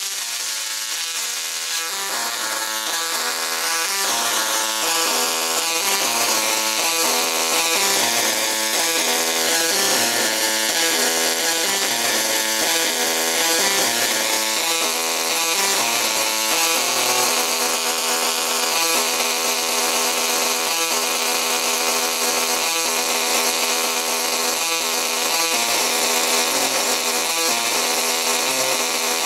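Small solid-state Tesla coil, driven by a full bridge of 40N120 IGBTs from a 180 V AC supply, throwing arcs into the air: a loud electric buzz from the sparks. The pitch steps up and down about every half second, and the buzz grows louder over the first few seconds.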